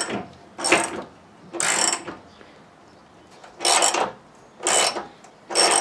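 Socket ratchet clicking in short bursts as it is swung back and forth, tightening bolts into a car's front crash bar; about six bursts, with a longer pause around the middle.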